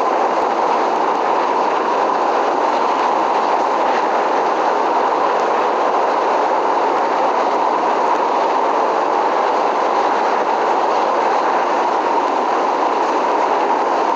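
Train running on the rails: a steady, unbroken rumble and rail noise that holds an even level throughout, with no horn and no change in pace.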